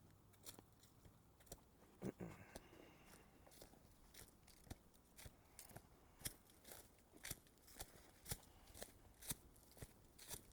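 Footsteps of a hiker crunching on the trail, a short sharp crunch about twice a second.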